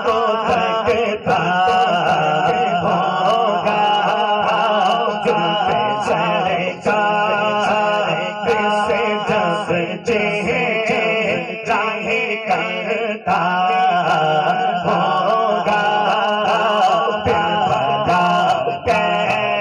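A man's solo devotional chant, sung through a microphone and PA. The melody is long and ornamented, with held, wavering notes and short breaks for breath, over a steady low hum.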